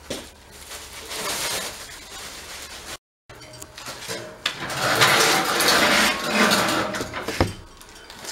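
Clinks and clatter of sheet-metal grill parts being handled, with a sharp knock near the end. The sound drops out for a moment about three seconds in.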